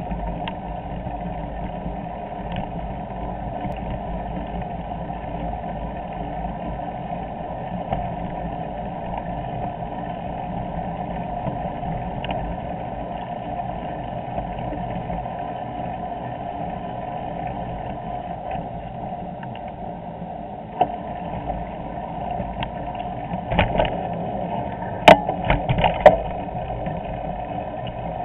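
Steady rolling rumble of a bicycle riding a paved cycle path, picked up by a camera clamped to the handlebar. Near the end comes a cluster of sharp knocks and rattles, the loudest two about a second apart.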